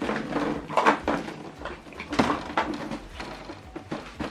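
Handling noise from a USB cable being moved around: rustling with a run of irregular light knocks and clicks.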